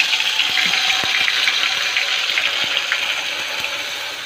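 A wet ground paste of onion, tomato, cumin and dried coconut sizzling and crackling in hot oil, the sizzle slowly dying down toward the end.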